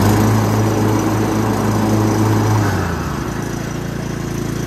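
Cub Cadet XT1 lawn tractor's engine running at full throttle with the mower blades just engaged. A strong low hum in the first three seconds then eases to a steadier, slightly quieter running.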